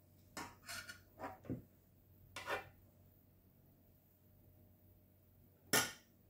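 A spoon scraping and knocking against a saucepan and a serving dish while scooping and spreading béchamel sauce: a few short scrapes in the first three seconds, then one louder knock near the end.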